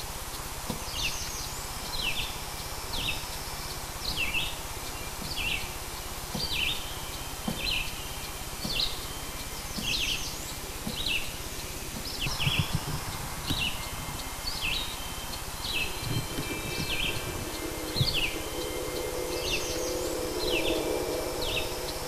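Bird chirps, short downward-slurred calls repeating about once a second, over a soft nature-sound bed. A few soft low drum beats come in past the middle, and a chime rings near the end.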